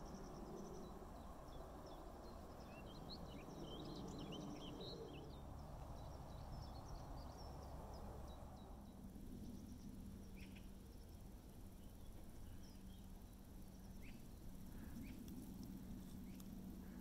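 Faint outdoor ambience: wind rumbling on the microphone, with small birds chirping in the first few seconds. The wind drops away about halfway through, leaving a faint steady low hum and a few brief high ticks.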